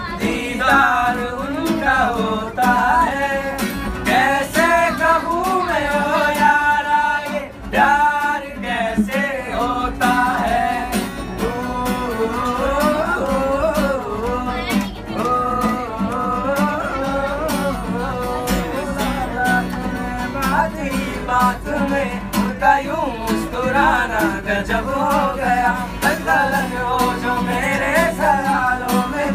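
Several men singing a song together, unamplified, to a strummed acoustic guitar.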